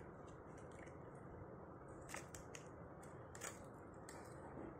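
Faint room hiss with a few soft, scattered clicks from a plastic multicolour pen being handled.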